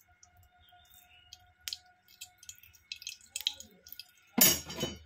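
Mustard oil poured in a thin stream into a warming kadai, with scattered faint ticks and crackles. About four and a half seconds in, a short loud noise cuts through.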